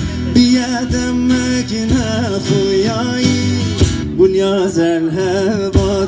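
Background music: a song with a singing voice over a plucked string instrument.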